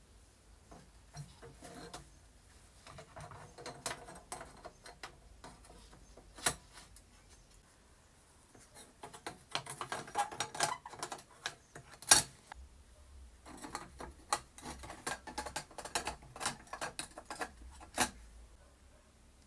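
Small clicks, taps and light scraping of candle-lamp parts being handled, sparse at first and then in quick dense runs. Three sharper knocks stand out: about a third of the way in, just past the middle, and near the end.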